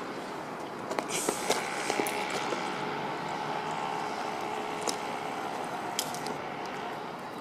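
Handling noise from a handheld video camera: a few sharp clicks and rustles, with a faint steady whine in the middle while the shot blurs and zooms out.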